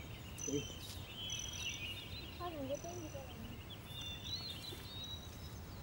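Small songbirds chirping and trilling repeatedly over a steady low outdoor rumble, with a brief faint wavering call about two and a half seconds in.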